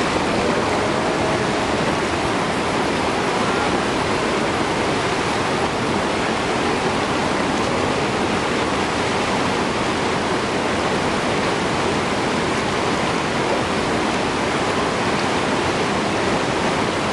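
Whitewater river rapids rushing steadily: a loud, even wash of churning water with no break.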